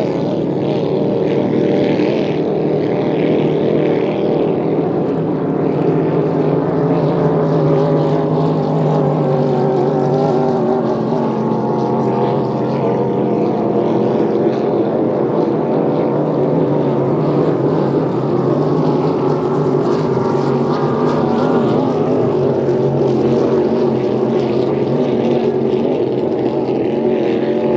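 Pro-Lite inboard hydroplane racing boats running flat out, their engines loud and steady with a slightly wavering pitch.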